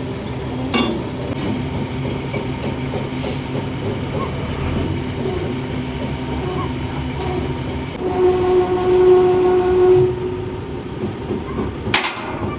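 A heavy vehicle's horn blows one steady note for about two seconds over a continuous engine rumble. Near the end there is a single sharp metallic clank.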